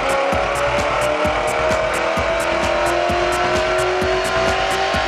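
BMW M5 E39's 4.9-litre V8 running hard under load on a chassis dyno, its pitch rising slowly and steadily as the revs climb through a power run. Music with a quick regular beat plays over it.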